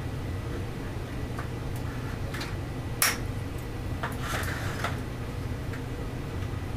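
Cutters clipping off an end with one sharp snap about three seconds in, among lighter clicks and rustling as plastic parts are handled, over a steady low background hum.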